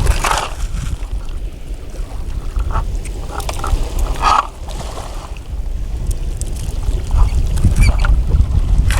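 Wind rumbling heavily on the microphone at the seashore, growing stronger in the second half, with a few short calls about a second, four seconds and eight seconds in.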